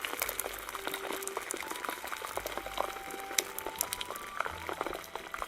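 Hot steel axe head sizzling and crackling in a water quench, the water boiling against the metal. The back of the axe is being cooled below critical temperature to shed leftover heat, not to harden it.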